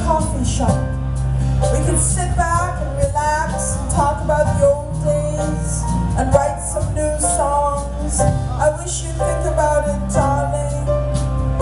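Live band music: a steady bass line under a wavering melody line, without sung words.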